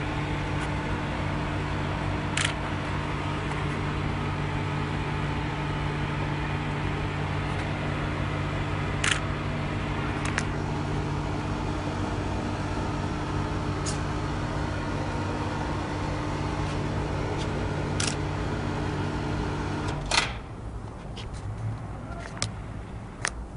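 Steady machine hum made of several low tones over a noisy rush, broken by a few sharp clicks; about 20 seconds in the hum cuts off suddenly with a click, leaving a quieter hiss.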